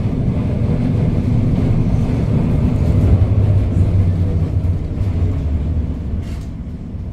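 Historic electric tram running, heard from inside the car: a low rumble of motors and wheels on the rails that swells about three seconds in and then fades.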